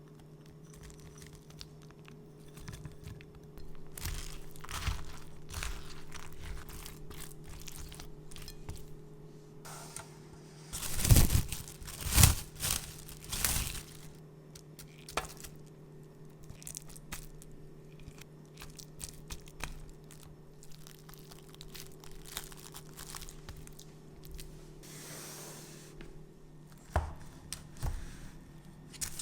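Hands preparing dessert ingredients: crinkling, tearing and crunching sounds, with a cluster of loud cracks and crunches about eleven to fourteen seconds in. A faint low steady hum sits underneath and fades out near the end.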